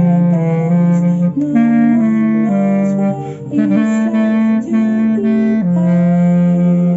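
Clarinet, played by a first-time amateur, carrying a slow melody through a series of held low notes. It settles on one long held note about five and a half seconds in.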